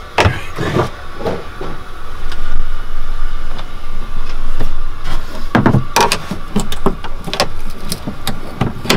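Clanks and knocks of hand tools and metal driveline parts being worked loose in a Polaris RZR's centre tunnel, with a cluster of sharper knocks about six seconds in.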